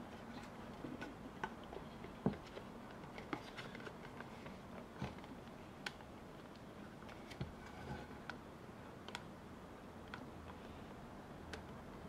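Wood being hand-carved with a blade: faint, irregular little clicks and scrapes as the tool cuts into the wood, the sharpest click about two seconds in.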